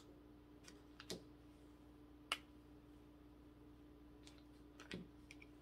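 Near silence with a faint steady hum, broken by a handful of light clicks and taps, the sharpest a little over two seconds in.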